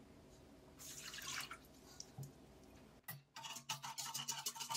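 Water poured from a glass jug into a stainless steel mixing bowl about a second in, then a wire whisk stirring yeast and sugar into the water, clicking rapidly against the metal bowl from about three seconds in.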